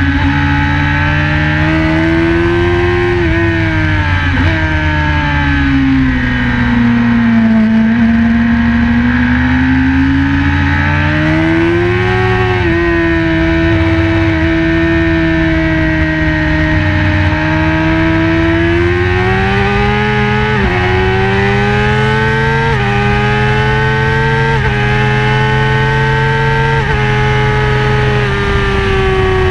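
BMW S1000RR inline-four engine heard onboard, revving through the gears. The pitch sinks as it slows early on, climbs and holds, then a run of quick upshifts in the second half drops the pitch sharply at each change before it falls away near the end.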